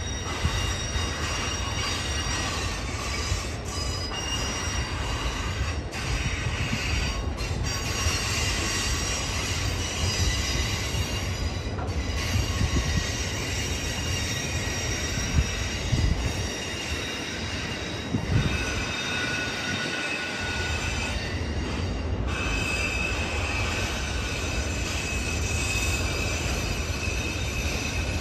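Freight train of autorack cars rolling slowly past, its wheels squealing in high, steady tones that fade and return over a continuous low rumble. A few sharper clanks stand out near the middle.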